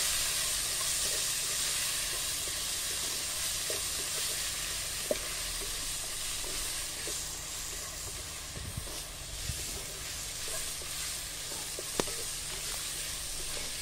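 Chopped tomatoes and golden-browned onions sizzling steadily in oil and ghee in a pot, with a wooden spatula stirring and scraping through them. Two sharp ticks stand out, about five seconds in and near the end.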